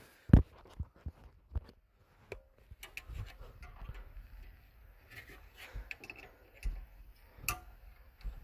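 Scattered clicks and knocks of a screwdriver, screws and plastic parts being handled during work under a car's dashboard. The loudest knock comes just after the start and another near the end, with light ticks between.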